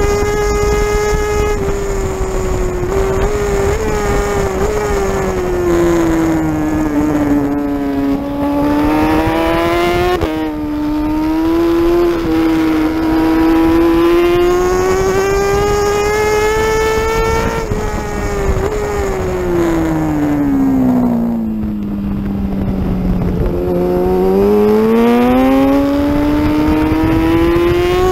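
Racing superbike's engine at high revs, heard close up from the bike itself, with wind rush. The engine note falls and rises with throttle and gear changes: it drops in pitch under braking with a sharp jump up on a downshift about ten seconds in, falls again past the middle, then climbs as the bike accelerates out of the corners.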